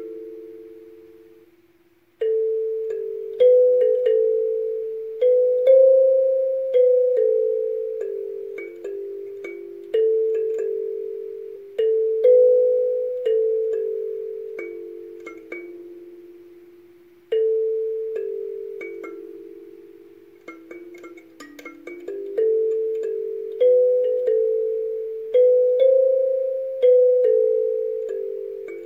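Kalimba played solo: a slow melody of single plucked metal tines, each note starting sharply and ringing as it fades. The melody breaks off briefly about two seconds in and again a little past the middle.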